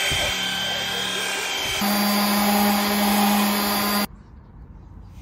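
Handheld electric power tools running on a boat hull. For the first two seconds it is a Makita angle-type rotary tool with a steady whine. It then switches abruptly to a DeWalt random orbital sander with a steady low hum, which cuts off about four seconds in.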